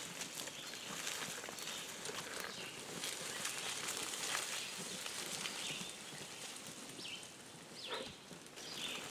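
Bicycle with a homemade trailer rolling through forest undergrowth: leaves and brush rustle and crackle under the tyres and against the frame, fading somewhat as it moves away near the end.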